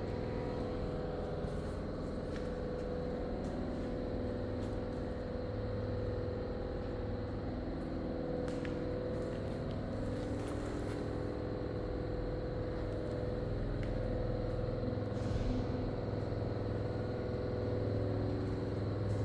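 Steady low mechanical hum with a few held tones and a few faint clicks.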